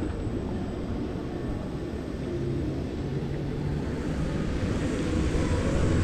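Wind rushing over an on-ride action camera as a fairground thrill ride swings the rider through the air, mixed with the low rumble of the ride, with a faint hum partway through. The rush grows louder near the end.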